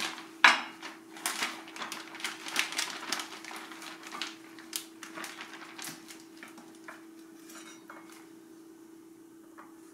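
A cleaver knocked down on a wooden cutting board, then a plastic bag crinkling and baby carrots clattering out onto the board in a quick run of knocks that thins out after about six seconds.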